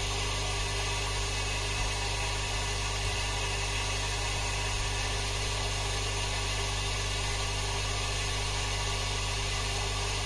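Charles Austen ET80 linear diaphragm air pump running under power, a steady low hum over an even hiss.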